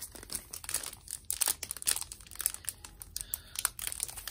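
Clear plastic sleeve around a set of large printed cards crinkling as it is handled and opened, a dense run of irregular sharp crackles.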